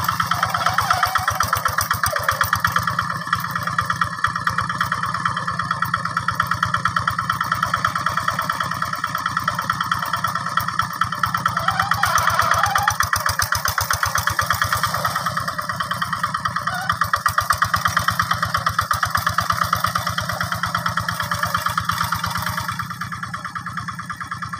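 Single-cylinder diesel engine of a Quick G600 hand tractor running steadily while it tills a flooded rice paddy, with a fast, even beat of firing strokes. It gets a little quieter near the end.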